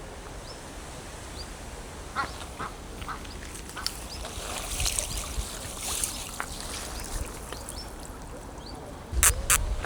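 Ducks quacking, with ducklings' short rising peeps scattered throughout. Two sharp knocks near the end.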